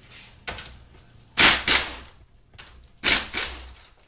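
Air impact wrench hammering on a 14 mm bracket bolt on a transmission case, in three short bursts, the second the loudest.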